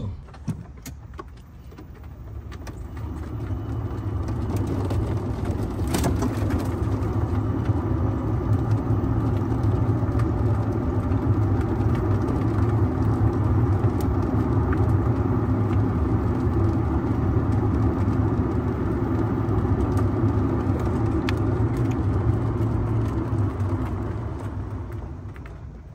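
48-volt Club Car DS golf cart driving along a street: its running and tyre noise builds as it pulls away and picks up speed, holds steady, then dies down as it slows near the end. There is a sharp click about six seconds in.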